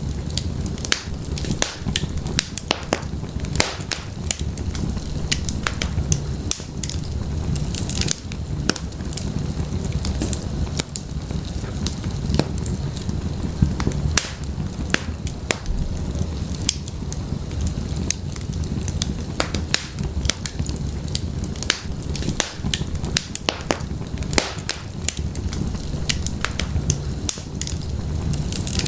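Wood fire crackling in an open fireplace: a steady low rumble of the burning logs with frequent, irregular sharp pops and snaps of the firewood.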